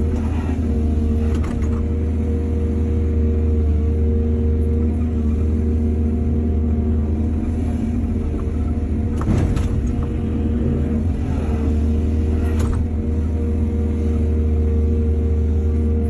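Excavator's diesel engine running steadily under load, a deep hum with a steady tone, broken by a few short sharp sounds near the start, about nine seconds in, and about twelve seconds in.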